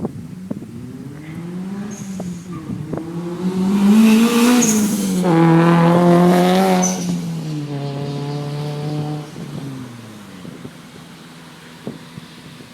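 A car accelerating hard past: the engine note climbs, drops at a gear change and climbs again, is loudest as the car goes by, then falls away and fades.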